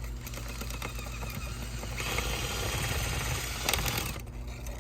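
A bird's nest being worked out of a dryer vent duct: a continuous scratchy rattle and crackle of scraping inside the duct, louder from about two seconds in and cutting off suddenly near the end.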